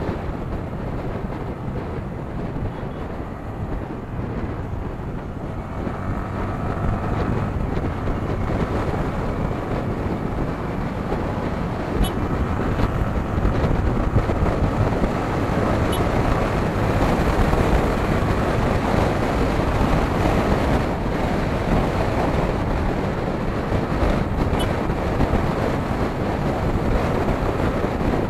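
Yamaha R15 V3's 155 cc single-cylinder engine running at road speed, mixed with wind noise on the microphone, getting louder over the first half as the bike picks up speed.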